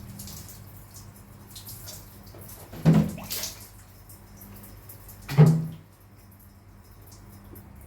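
Water running and splashing while a cat is bathed, with two short louder sounds about three and five and a half seconds in.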